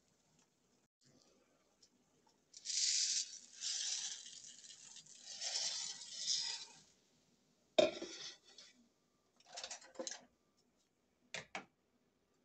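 Kitchen clatter of dishes and utensils being handled. A few seconds of rustling hiss come first, then a sharp clink of something set down about eight seconds in, more brief clatter, and two light clicks near the end.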